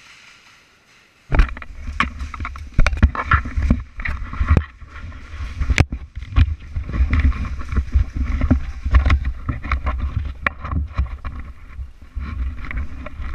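Movement noise on a body-worn action camera: a loud low rumble with many knocks and clicks from footsteps on a concrete floor and gear rubbing and clattering, starting suddenly about a second in.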